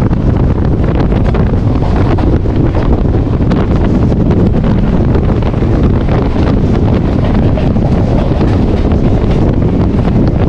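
Wind buffeting the microphone over the loud, steady rumble and dense clatter of a Mumbai suburban local train running at speed.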